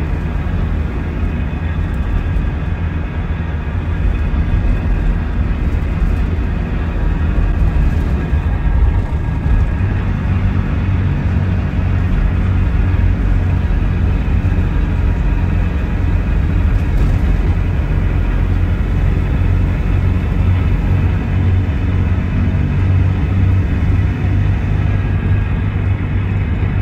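Scania DC9 five-cylinder diesel engine of a coach running steadily, growing a little louder about four seconds in.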